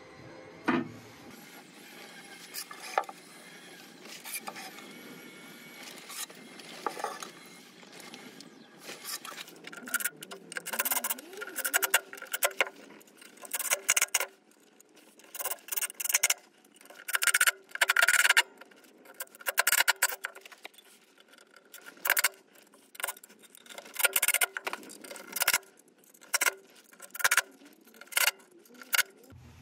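Cordless driver running in short, repeated bursts as it drives screws through a steel faceplate into a hard elm blank. The first several seconds hold only scattered clicks from handling the faceplate and screws.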